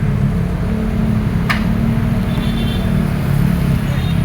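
Excavator's diesel engine running steadily, with a single short sharp click about a second and a half in.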